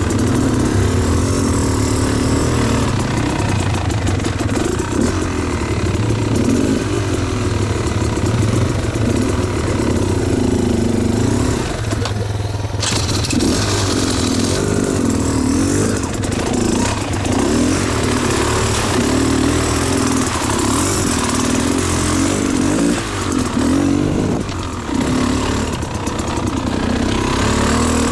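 Beta Xtrainer two-stroke dirt bike engine on the move, its pitch rising and falling over and over as the throttle is opened and closed.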